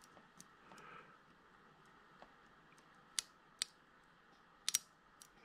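Small sharp clicks and taps of a thin metal pick prying at a glued-on plastic part of a 1/64 scale model truck. About half a dozen scattered clicks, the loudest a quick double click about three-quarters of the way through.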